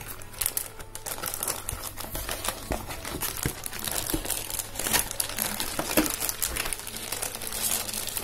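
Clear plastic wrapping around a new keyboard crinkling and rustling continuously as hands work it inside the cardboard box.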